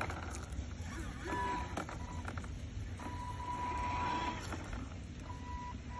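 A steady high electronic beep tone, sounding on and off and held for about a second or more each time, over a low background rumble.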